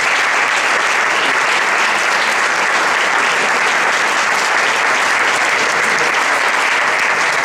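Audience applauding steadily: dense, even hand-clapping.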